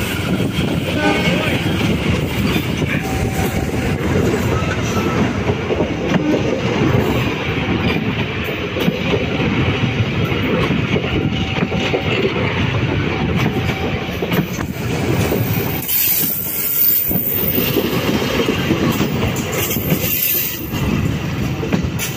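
Passenger coaches of a locomotive-hauled train rolling past close by, their wheels running over the rails in a loud, steady rumble that eases slightly near the end as the last coach goes by.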